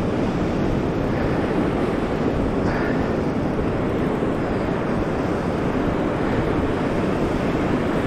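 Ocean surf washing over shore rocks, with wind buffeting the microphone in a steady low rumble.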